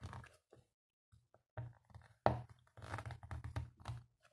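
Faint handling noises from hands setting a plastic anime figure upright: scattered light clicks, knocks and rustles, busiest in the second half.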